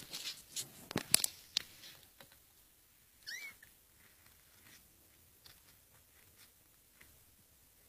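A domestic cat gives one short, rising meow about three seconds in, after a few sharp clicks and knocks at the start.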